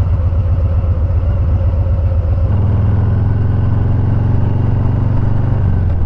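Harley-Davidson V-twin engine running while riding on the road. About two and a half seconds in the engine note grows stronger as the throttle opens, and near the end the pitch drops briefly.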